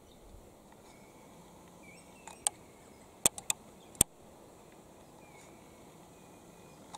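Five sharp clicks of camera handling, four of them bunched about three to four seconds in, over a faint outdoor background with a few short, faint high bird chirps.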